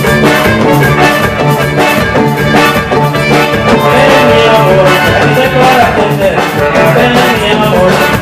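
Instrumental passage of a band's song with no singing: a steady beat under a sustained melody.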